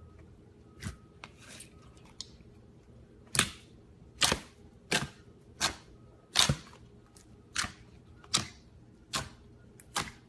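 Clear slime making sharp popping clicks: a few faint pops, then about nine loud ones in a fairly steady rhythm, roughly one every 0.7 seconds.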